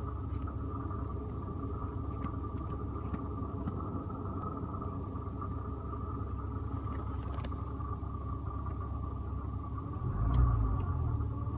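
Porsche Cayman engine running steadily with a tapping, knocking noise, the fault the owner is trying to show. A brief louder low rumble comes near the end.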